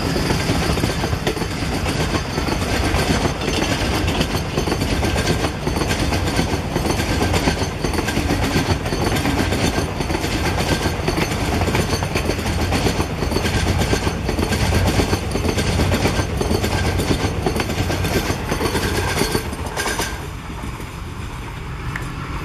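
Passenger coaches of an express train rolling past at speed, their wheels clicking in a steady clickety-clack. The noise drops near the end as the last coach passes and moves away.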